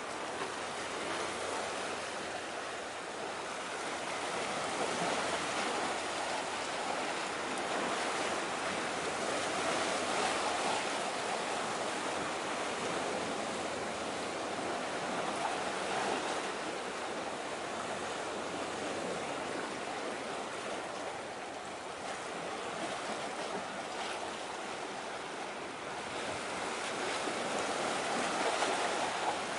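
Steady wash of sea waves with some wind, swelling and easing slowly every few seconds.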